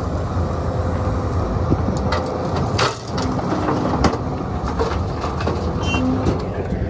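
Sumitomo SH300 excavator's diesel engine running steadily, with a few sharp knocks and clatters of stone partway through as rocky material is loaded.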